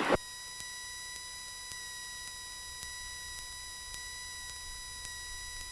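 A steady electrical tone on the aircraft's intercom and radio audio feed: one constant pitch around 1 kHz with higher overtones over a faint hiss. A brief burst, the end of a transmission, comes right at the start.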